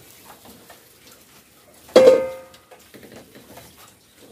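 A single clang of metal kitchenware, struck or knocked, ringing with a clear tone for about half a second. It comes about two seconds in, over faint clatter of bowls and utensils.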